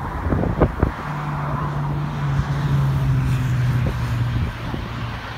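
Wind gusting on the microphone, with a low, steady engine drone that sets in about a second in, sags slightly in pitch and fades near the end.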